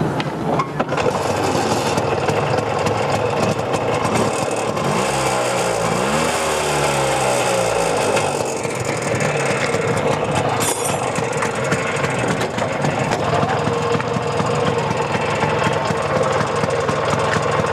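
Auto-rickshaw engine running at idle, briefly revved with a rise and fall in pitch about six seconds in.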